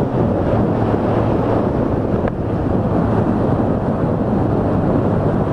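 Wind rushing over the helmet microphone at highway speed, with the Suzuki Hayabusa's inline-four engine underneath as a steady low drone at a constant cruise.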